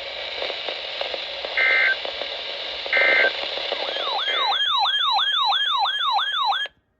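Emergency Alert System data tones: three short bursts of the warbling end-of-message signal over radio hiss, closing the tornado warning. From about halfway through, a siren-like tone sweeps quickly up and down, about three times a second, and cuts off suddenly near the end.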